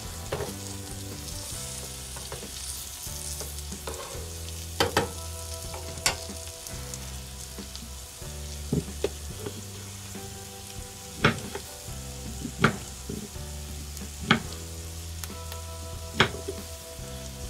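Onions sizzling in oil in a small pan on a miniature electric toy stove, with about eight sharp clicks scattered through the sizzle as the onions are stirred.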